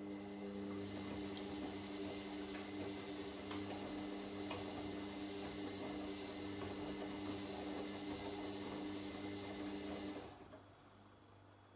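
Washing machine motor running and turning the drum with the laundry tumbling: a steady hum with a few light clicks, which stops abruptly about ten seconds in as the wash rotation pauses.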